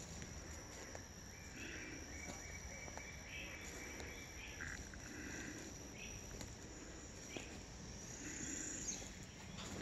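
Faint outdoor ambience: a steady high insect trill throughout, a few short bird calls, and soft footsteps on wood-chip mulch.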